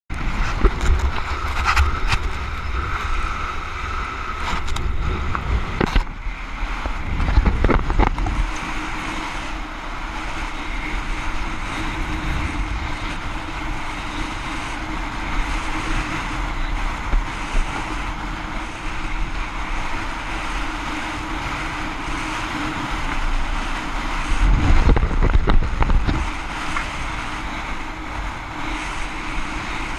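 Wind buffeting the microphone of a rider-mounted camera while kite foiling across choppy water, over a steady rush of air and water. Heavy gusts rumble in the first several seconds and again near the end, with a faint steady low tone underneath.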